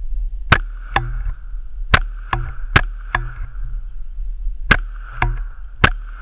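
Smith & Wesson M&P 22 pistol firing .22 rimfire rounds: nine sharp shots, most in quick pairs about half a second apart.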